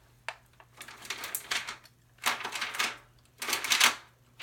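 Hand-cranked paper crimper pulling a sheet of notebook paper through its ridged rollers. It gives clattering runs of clicks in repeated bursts about once a second, growing louder.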